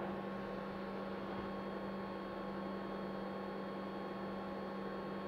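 Steady electrical hum with a low tone and fainter higher tones over even background hiss.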